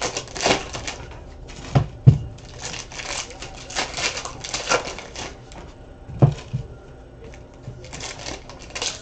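Trading cards and clear plastic card sleeves rustling and sliding as hands sort through the cards, with sharp knocks on the table about two seconds in and again just after six seconds.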